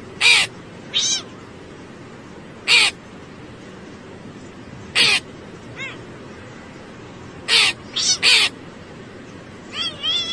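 A crow calling with short, harsh caws, about seven of them spaced a second or a few seconds apart, over a steady background noise.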